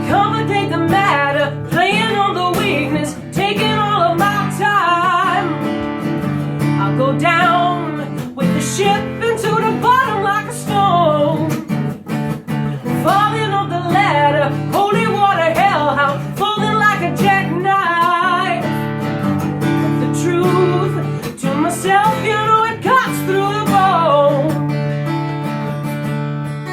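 Acoustic guitar strummed in steady chords while a voice sings melodic phrases over it.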